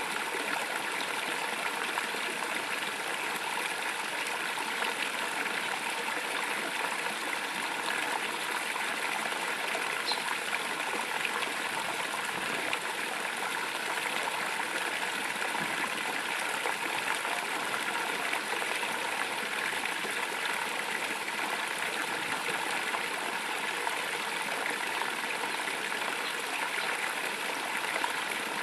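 Water falling steadily into a pond, a continuous splashing rush that stays even throughout.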